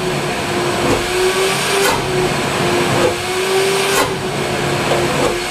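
Dustcontrol DC Tromb 400 construction dust extractor (about 3000 W) running with its shut-off slide closed, the inlet sealed as for filter cleaning: a loud, steady motor whine whose pitch wavers slightly, with two sharp clicks about two and four seconds in.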